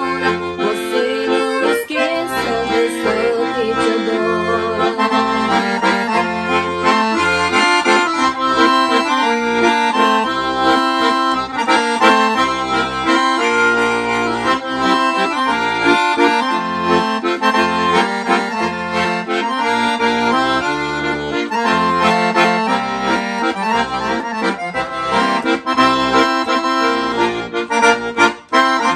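Solo piano accordion playing an instrumental passage of a traditional song: melody and chords on the treble keyboard over rhythmic bass notes. Near the end it breaks into short, clipped chords.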